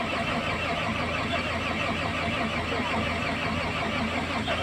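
Motor grader's diesel engine running steadily on a cold start in severe frost.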